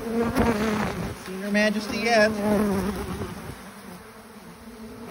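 A mass of honey bees buzzing, with single bees flying close by so that the hum bends up and down in pitch. There is a brief knock about half a second in, and the buzzing grows softer after about three and a half seconds.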